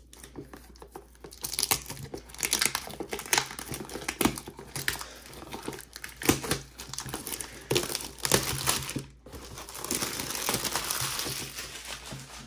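Clear plastic shrink-wrap being torn and peeled off a cardboard box, crinkling and crackling in many short, irregular bursts.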